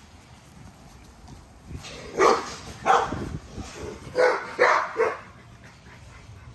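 American bully dog barking five times: two barks, a short pause, then three quick barks.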